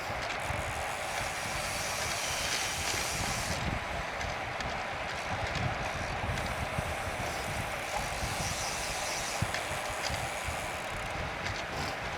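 Steady rush of wind and rolling tyre noise from a road bicycle on the move, with uneven low buffeting from wind on the microphone.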